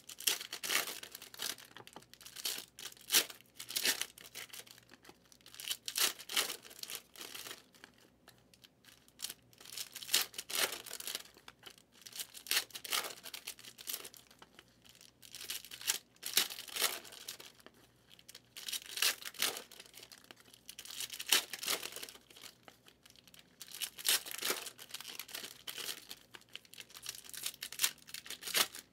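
Foil trading-card packs being torn open and their wrappers crinkled by hand, in short bursts every two to three seconds.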